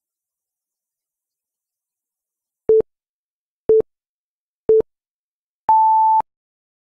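Electronic countdown beeps: after a silence, three short low beeps a second apart, then one longer, higher beep as the countdown reaches zero.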